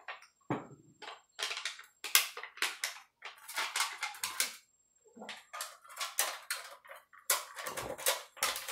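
Thin cut-up tin-can metal strips crinkling, clicking and scraping as they are handled and worked into a steel transmission input drum. The clicks come fast and irregular, in clusters with short gaps, with a couple of low knocks against the drum.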